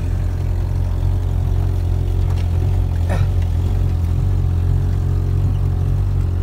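A vehicle's engine running with a steady low drone, heard from inside the cab.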